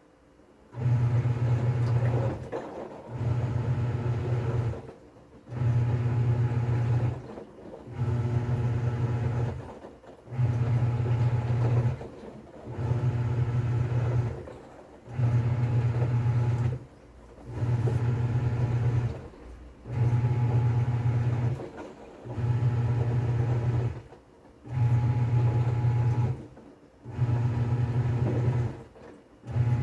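TCL 7.5 kg top-load washing machine in its wash stage: the pulsator motor hums in repeated bursts of about two seconds with short pauses between, agitating the load back and forth. It starts about a second in and keeps a regular rhythm.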